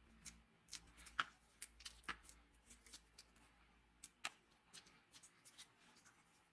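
Faint, scattered light clicks and taps of small hand-work on a workbench, the sharpest a little over a second in and again about two seconds in.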